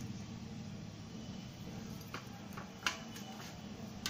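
A few short, sharp clicks and taps from a glass jar being filled with masala-coated raw mango pickle pieces, over a steady low hum.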